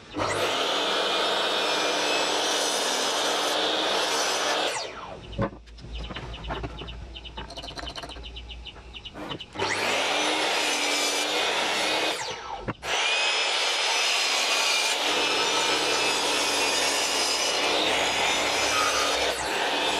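Makita sliding miter saw cutting through wooden boards: its motor and spinning blade make a steady loud whine mixed with rasping cutting noise. The sawing drops away about five seconds in, comes back near ten seconds, breaks off briefly near thirteen seconds and then resumes.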